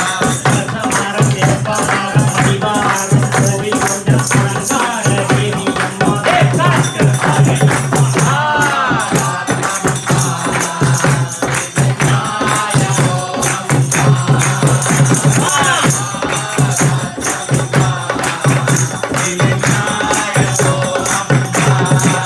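Group devotional bhajan singing: a lead voice on a microphone with the gathering singing along, over hand clapping and a dholak barrel drum keeping a steady beat.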